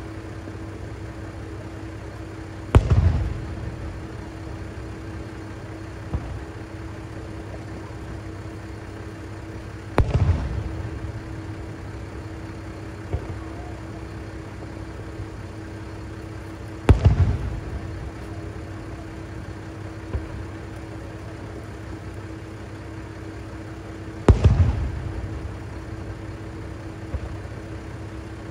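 Four firework shells bursting overhead, each a loud sharp boom with a rolling rumble after it, about seven seconds apart. Each is preceded about four seconds earlier by the faint thud of its launch. Under them runs the steady hum of an idling diesel railcar.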